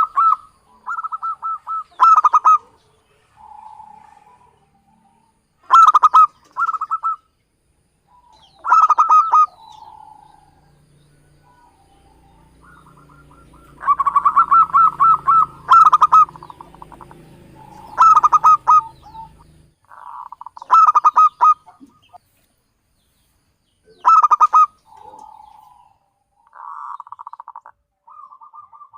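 Zebra dove (perkutut) cooing: repeated short phrases of rapid, stuttering coos with brief pauses between, some phrases loud and others softer.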